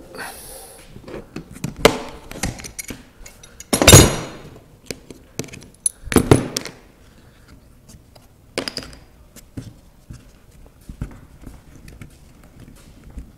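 Workshop clamps being loosened and lifted off a wooden bending mold and set down on the bench: irregular knocks and clatter, the loudest clunk about four seconds in and another about two seconds later.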